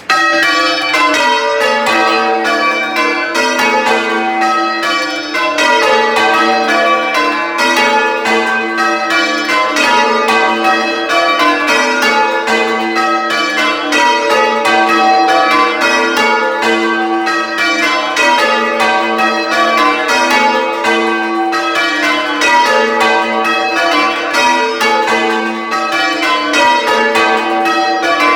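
Ring of six church bells being rung full-circle in call-changes, heard close up in the belfry: a steady, even succession of loud bell strokes. The tenor weighs about 12½ cwt and is tuned to G.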